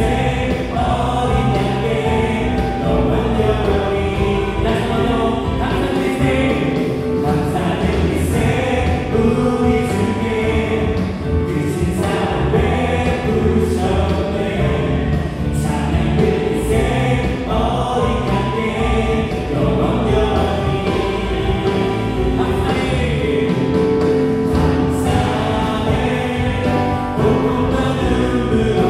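Contemporary worship band playing a gospel song: electric guitar, bass guitar, Korg Triton and Yamaha Montage keyboards and a drum kit keeping a steady beat, with voices singing over them.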